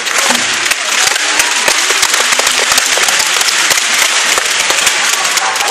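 Spectators clapping, a dense run of sharp claps.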